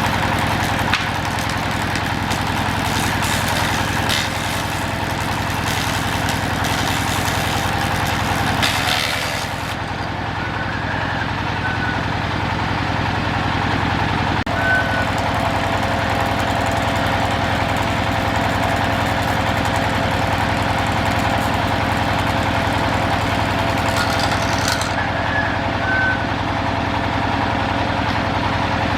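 An engine-driven machine running steadily at constant speed, with a few short high squeaks now and then.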